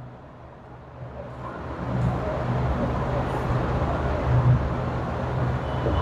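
Steady rumbling background noise that swells in over the first two seconds and then holds evenly.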